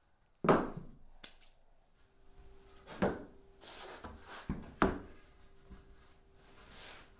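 Laminated plywood brace being set down and shifted on a plywood boat transom: a loud wooden knock about half a second in, then two more knocks near three and five seconds in, with handling noise between.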